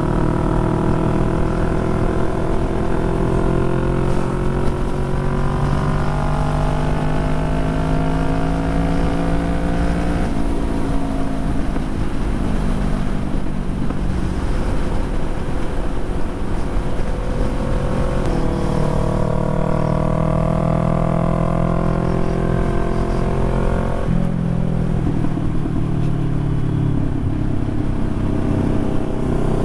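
Motorcycle engine running under way, its pitch climbing slowly for about ten seconds and then dropping suddenly, with a second slow climb and sudden drop later on.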